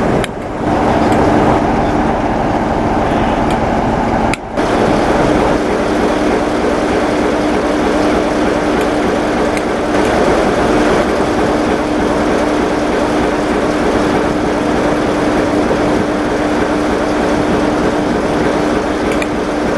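Class 47 diesel-electric locomotive's twelve-cylinder Sulzer engine idling with a steady drone. Over it come faint clicks from the Spirax automatic drain valve on the air reservoirs, which releases moisture from the air brake system while there is air in it. The sound dips out briefly twice in the first few seconds.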